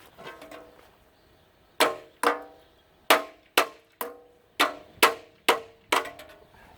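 Hammer blows on metal, about nine sharp strikes in quick succession starting about two seconds in, each ringing briefly: beating on a stuck part of a central air unit that is not budging.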